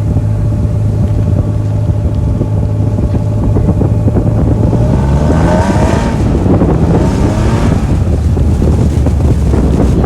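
An engine running loud and close, its pitch climbing and falling back around the middle, as under revving.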